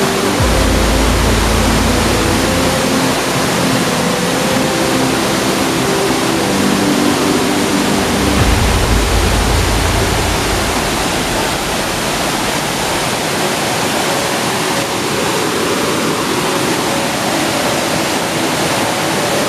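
Rushing water of fast river rapids over rocks, a loud, steady wash of noise, with two low rumbles on the microphone, one near the start and one around the middle.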